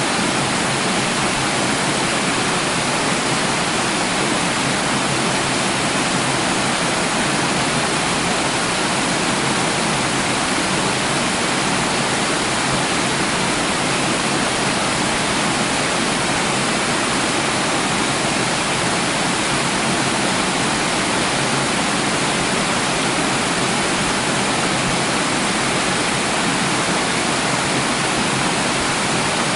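Water rushing steadily, an even, unbroken hiss with no splashes or changes.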